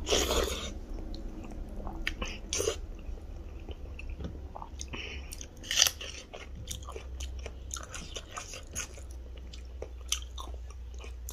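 Close-miked mouth sounds of eating rice and curry by hand: wet chewing and smacking with small clicks. About six seconds in comes one loud crunchy bite into raw red onion.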